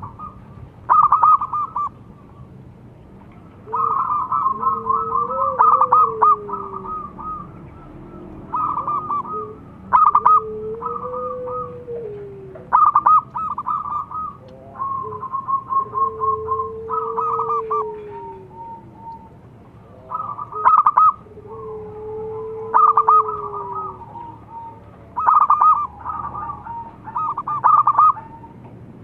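Zebra doves (perkutut) calling: repeated bursts of rapid staccato cooing notes, over and over. Under some bursts there is a lower, drawn-out note that rises and then falls, heard four times.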